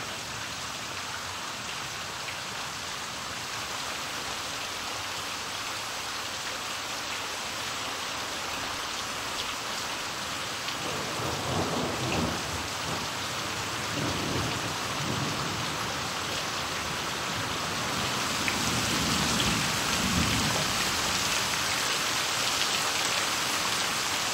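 Steady rain shower, a dense hiss of drops falling on leaves and standing water, growing louder in the second half. Low rumbles of thunder roll in about halfway through and again later.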